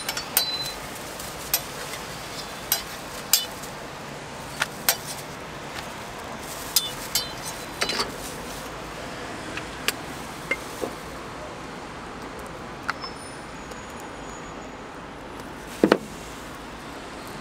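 Scattered sharp clicks and taps of utensils on a flat crepe griddle while a crepe is spread, folded and topped with jam, over a steady hiss. One louder knock comes near the end.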